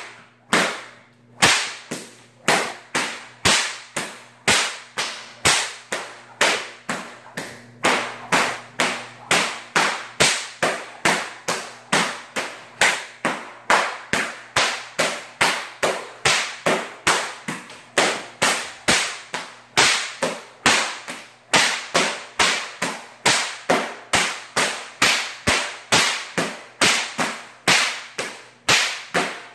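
A hand whip being cracked over and over in a steady rhythm, about two sharp cracks a second, each echoing briefly in a garage.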